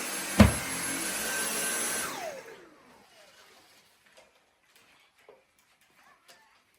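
Vacuum cleaner running, with a sharp knock about half a second in; about two seconds in it is switched off and its motor whine falls away as it spins down. Afterwards only a few faint clicks and knocks.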